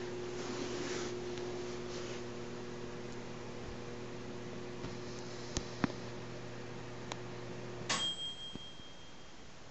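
Steady electrical mains hum from a household appliance that cuts off with a sharp click about eight seconds in, leaving a brief fading high ring. A few light ticks come shortly before it stops.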